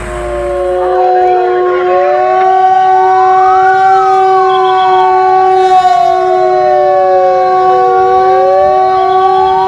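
Siren wailing: a pitch that slides slowly up and down over a steady held tone. It swells in over the first second, peaks about four seconds in, falls until about eight seconds, then starts rising again.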